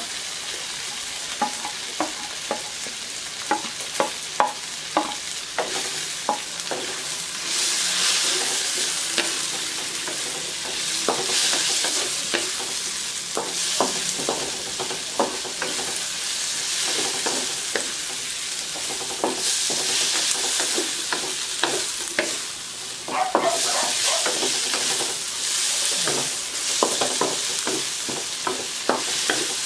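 Carrot strips and bell pepper sizzling in oil in a nonstick wok, stirred with a wooden spatula that knocks and scrapes against the pan in frequent short clicks. The frying hiss swells and fades several times as the vegetables are turned.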